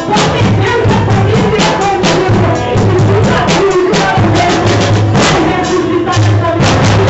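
Upbeat music with a fast drum-kit beat and held bass notes, typical of a church band playing during a worship service.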